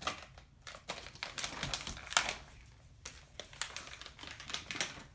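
Crinkling and rustling of a bag of dog treats being opened and handled, with a stream of irregular crackles and clicks.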